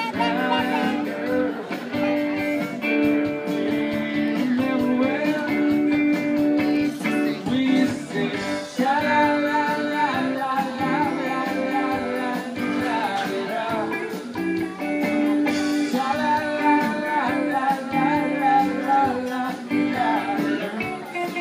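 Live music: guitar with a singer, a steady song with held sung notes over the chords.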